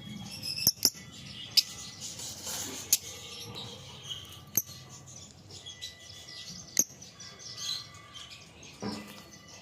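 Lovebirds chirping: a run of high twittering, broken every second or two by a short, sharp, loud chirp.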